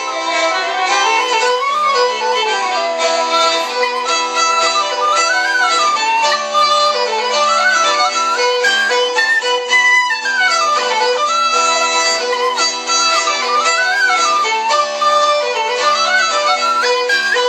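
Fiddle playing a tune, with steady held drone notes under a melody that slides up and down.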